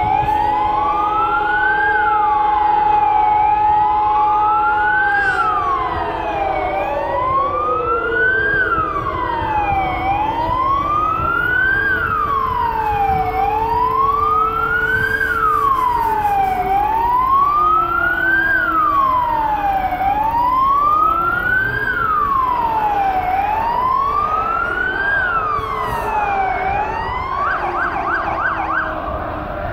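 Several sirens sounding together for W-hour, the Warsaw Uprising anniversary commemoration. A loud wail rises and falls about once every two seconds, with fainter sirens overlapping out of step. Others hold a steady tone and then slide slowly down. Near the end a rapid warble joins in.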